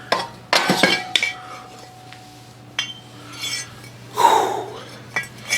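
Metal tools clinking and knocking against metal parts, several separate knocks, one of which rings on for a second or two, with a short scraping burst about four seconds in.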